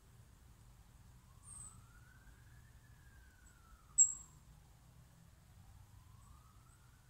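A faint siren wailing, its pitch rising and falling slowly over a few seconds per sweep, above a low steady rumble. Two short high chirps cut in, a soft one about one and a half seconds in and a sharp, much louder one about four seconds in.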